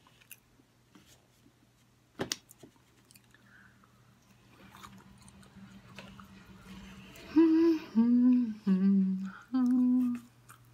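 A woman humming four short notes with her mouth closed, the pitch stepping down and then back up, about seven seconds in. Before that, faint chewing clicks.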